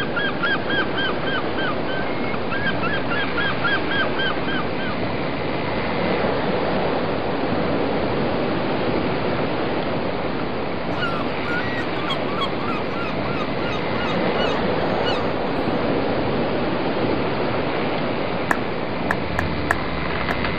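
Steady rush of water and wind as a boat moves slowly under way, with a rapid run of short squeaky calls, about five a second, twice in the first few seconds and faintly again midway. A few sharp clicks near the end.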